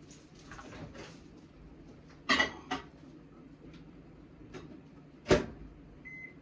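Kitchen handling noises: dishes clattering twice about two seconds in, then a single loud knock of something shutting about five seconds in, and a short electronic beep near the end.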